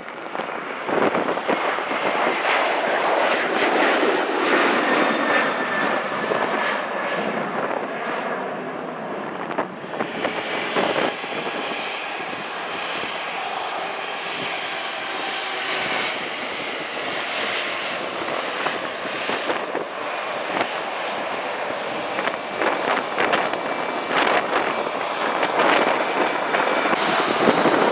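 Airbus A319's twin jet engines running at taxi power: a steady jet rush with a faint high whine, growing louder near the end as the aircraft comes closer.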